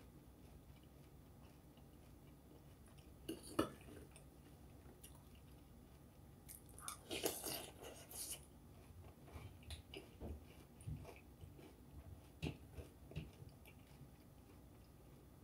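A person chewing a mouthful of Cinnamon Toast Crunch and Raisin Bran cereal: faint crunching, densest in a burst about seven seconds in, then scattered soft crunches. A single sharp click comes a little before four seconds in.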